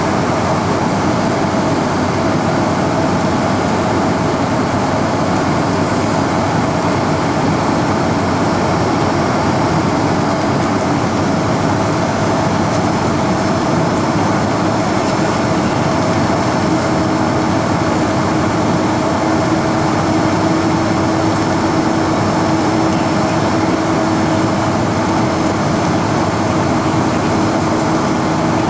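Boeing 747 cabin noise during the approach: a steady rush of airflow and engine drone heard through the fuselage. A low hum comes in about a third of the way through and holds.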